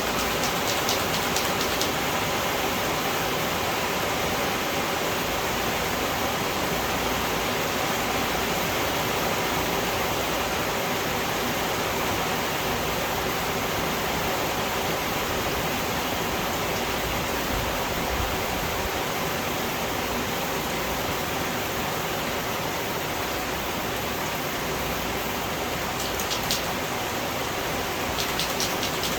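Steady rain falling, an even hiss that does not let up, with a few faint clicks near the start and again near the end.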